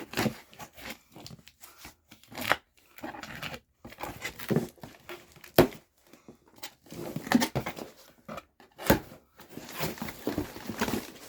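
A shipping package being opened by hand: irregular crinkling and tearing of paper and packaging, with sharp snaps and knocks, two of them louder, about five and a half and nine seconds in.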